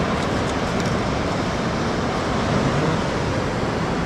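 Steady rushing outdoor noise with no distinct events, the kind made by surf, wind or distant traffic.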